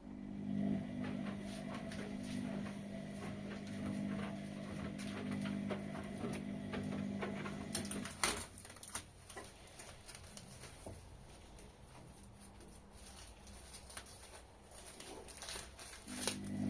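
Whirlpool washing machine running with a steady low hum. The hum cuts off with a click about halfway through, leaving light clicking and patter, and starts again near the end.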